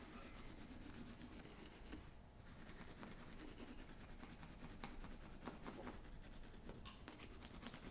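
A toothbrush scrubbing on teeth, a faint continuous scratchy rubbing with small clicks.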